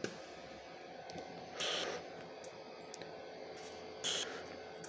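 Inogen One G3 portable oxygen concentrator running with a faint steady hum, letting out a short hissing puff of air about every two and a half seconds, twice here. It is cycling on its own because nobody is breathing from it.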